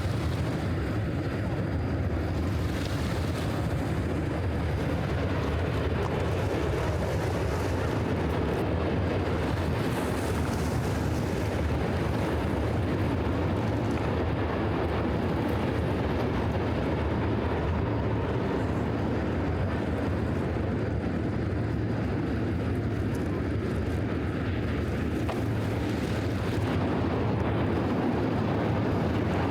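Steady low rumble of city traffic ambience, an even wash of distant vehicle noise with no single event standing out.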